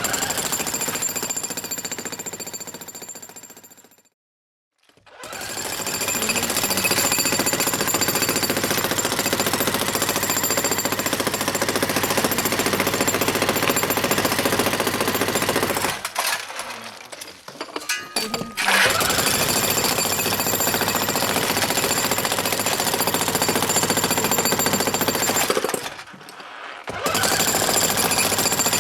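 Hilti power hammer running in long stretches of rapid hammering, with a steady high whine over it. It stops briefly about four seconds in, stutters on and off for a couple of seconds around the middle, and pauses once more near the end.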